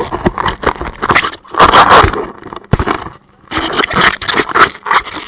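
Handling noise: an action camera rubbing and knocking against a jacket as it is carried, giving loud, irregular scraping and rustling bursts on the microphone.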